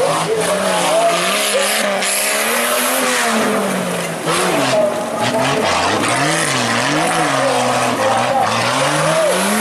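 Off-road 4x4 engine revving up and down over and over, the pitch swinging rapidly several times in the second half, over a constant rushing hiss.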